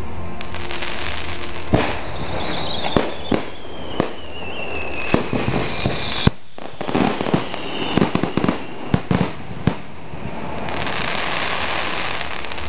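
Aerial firework shells bursting overhead: a string of sharp bangs, scattered at first and then coming thick and fast about seven to ten seconds in, with crackling between them. A long whistling tone that falls in pitch runs under the first few bangs.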